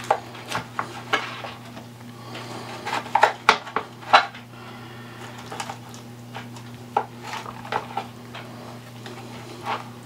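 Chef's knife cutting cooked spare ribs apart between the bones, giving irregular clicks and knocks as the blade chops through and strikes a plastic cutting board, busiest about three to four seconds in. A steady low hum runs underneath.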